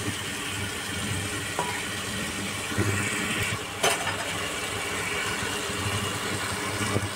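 A steady, low, engine-like mechanical hum in the background, with one sharp click about four seconds in.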